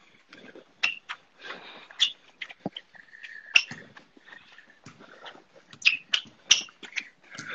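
Quick footwork on a hard floor during a figure-eight footwork drill: irregular sharp foot taps, several a second, with short shoe squeaks.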